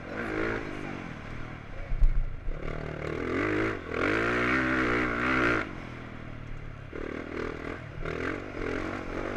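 Motocross bike engine revving up and down as it is ridden around a dirt track, heard from a rider-mounted camera. A few heavy low thumps come about two seconds in, and the loudest part is a long rising pull from about three to five and a half seconds in, after which the revs drop back.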